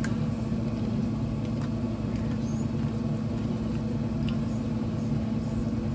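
A steady low hum runs throughout, with a few faint crunches of crackers being chewed.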